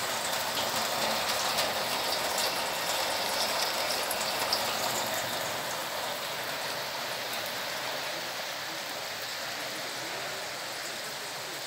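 Heavy rain falling steadily, with scattered sharp ticks of water drops in the first half.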